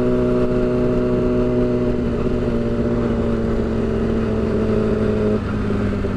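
Yamaha R6's inline-four engine with a loud slip-on exhaust running steadily while riding, its note easing slightly lower. A little over five seconds in, the engine note drops abruptly, lower and quieter.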